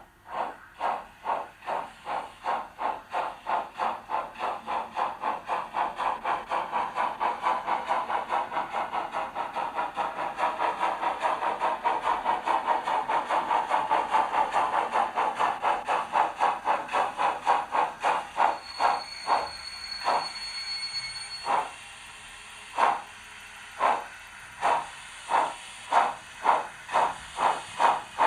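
Model BR 50 steam locomotive sound from an ESU V5 sound decoder, played through the model's loudspeaker: rhythmic exhaust chuffs simulating running under load, quickening to about three a second, then slowing to a little over one a second after a brief thin high tone about two-thirds of the way through.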